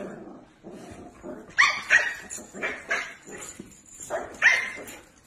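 Dog barking in several short, high-pitched yaps that come in pairs.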